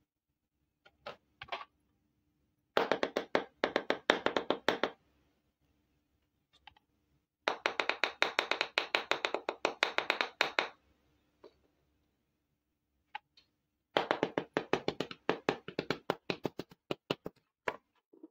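Small hard-plastic toy kitchen pieces being tapped and clicked by hand: three quick runs of rapid taps, each lasting a couple of seconds, with a few single taps between.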